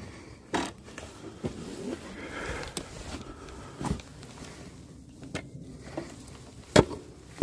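A person breathing hard and sniffing, with several sharp handling clicks and knocks; the loudest knock comes about a second before the end.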